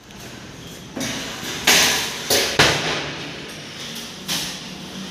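Kitchen drawers fitted with stainless steel wire baskets being pulled out and pushed shut on their runners. There are several knocks with a short metallic rattle, the loudest about two seconds in and again just after.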